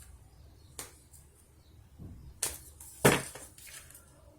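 Four short, sharp taps or clicks spread through a pause, the loudest about three seconds in, over a faint low hum.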